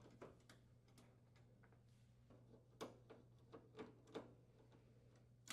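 Near silence with faint, irregular clicks, a few at a time, from a screwdriver unthreading the lower screws of the oven door's retaining brackets; a low steady hum underneath.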